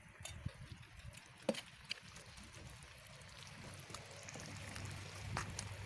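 Plov hissing and bubbling in a black kazan as soaked rice is spread over the hot meat and carrots, with a few sharp clicks. The hiss grows somewhat louder toward the end.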